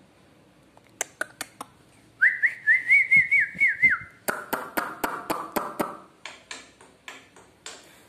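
Small caged songbird calling: a few sharp chips, then a warbled whistle lasting about two seconds, then a quick run of sharp chips over a lower held note, with scattered chips trailing off near the end.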